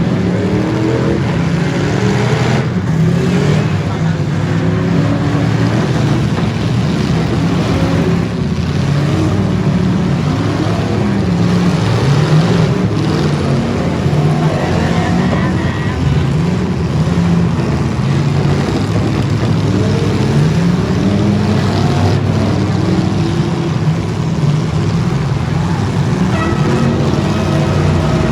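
Several stock V8 demolition derby car engines revving up and down over and over, overlapping one another, with a few sharp knocks.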